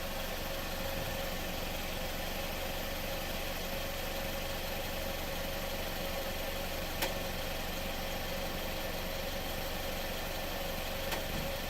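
2015 Mitsubishi Lancer io idling steadily, with a steady mid-pitched hum over the engine and two short sharp ticks, one past halfway and one near the end. The owner reports an abnormal noise from the underside when the engine is running and does not know its cause.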